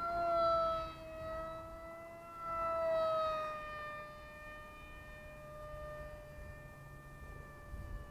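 Electric RC MiG-35 model jet flying past, its motor and fan giving a high whine of several steady tones. The whine swells about half a second in and again near three seconds, then drops slightly in pitch and fades as the jet moves away.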